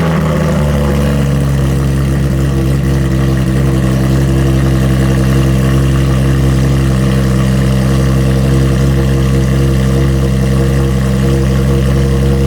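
A 2018 Porsche 911 GT3 RS's naturally aspirated 4.0-litre flat-six idles loudly through Dundon Motorsport race headers and an Inconel megaphone exhaust. It settles from its start-up flare in the first second into a steady idle.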